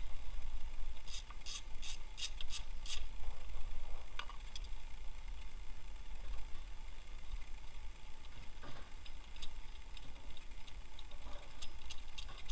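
Hand ratchet clicking in a quick run of about six clicks while an idler pulley bolt is worked loose, followed by a few scattered light metal clinks of tools and parts over a low steady rumble.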